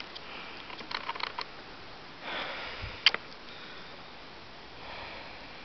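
Handling noise from a person moving with a handheld camera: a few light clicks and knocks, one sharp click about three seconds in, and a couple of soft breaths.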